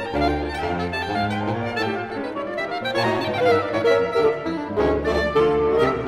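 Instrumental music from a saxophone quartet, several saxophone lines moving quickly over a low bass line.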